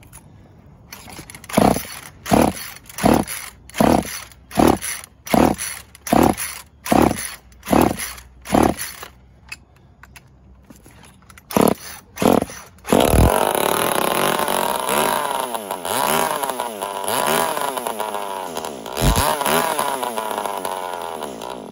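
Old Poulan two-stroke chainsaw pull-started: about a dozen quick starter-cord pulls, then about 13 seconds in it catches and runs, revving up and down. It runs only because oil added to the cylinder seals the badly scored piston and cylinder enough to give compression.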